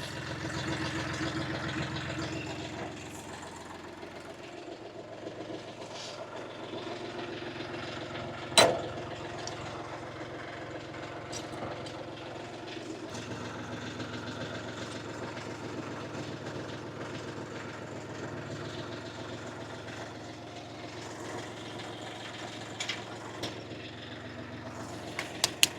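A UHI 254 compact tractor's engine running steadily at idle, with one sharp knock about eight and a half seconds in.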